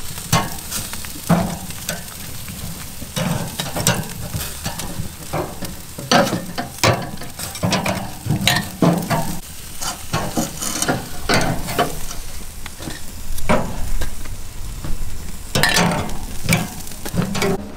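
Food frying and sizzling in a pan while it is stirred, with irregular scraping and clinking strokes, about one or two a second, over a steady sizzle.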